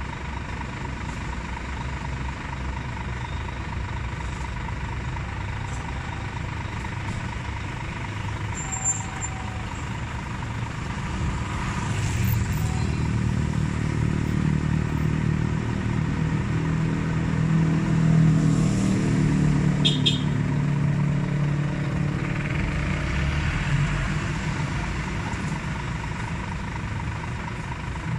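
Scania G440 tractor unit's diesel engine idling steadily. Another diesel lorry drives past close by: its engine swells up from about the middle, peaks, and fades again near the end.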